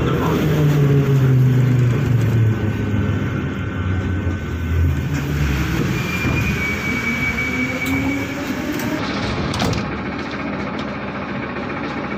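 Metro train decelerating into a station, heard from inside the car: the traction motor whine falls in pitch over the first few seconds, a brief high squeal sounds near the middle, and the running noise eases as the train comes to a stop.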